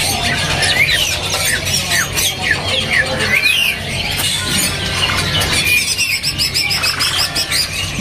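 Cucak ijo (greater green leafbird) singing in full song: a quick string of varied whistled notes sliding up and down, with a faster run of high, evenly spaced notes a little past the middle, over a low background rumble.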